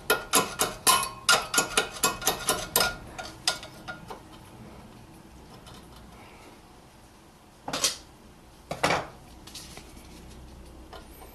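Rapid metallic clicking and clinking of the thin metal pad clips on a Toyota Prius front brake caliper bracket for the first three seconds or so, then two short scraping sounds about eight and nine seconds in.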